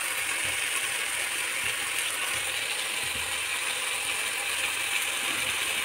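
Tomato-onion masala sizzling steadily in oil in a steel kadhai on the stove, a continuous crackly hiss.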